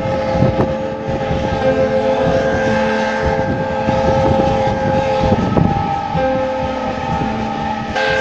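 An approaching locomotive's horn sounding long held notes, breaking off about five seconds in and starting again a second later.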